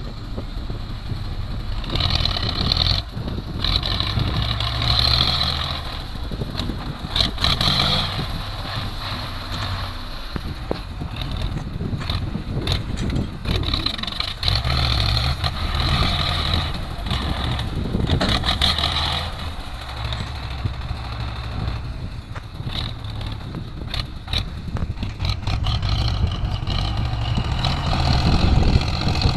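Heavy diesel construction machinery running, its engine note swelling and easing in several waves as it works under load. Scattered sharp knocks are heard among it.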